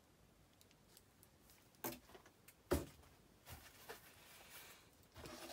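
Two sharp knocks about a second apart, then faint rustling of bubble wrap and cardboard as items are handled in a packed shipping box.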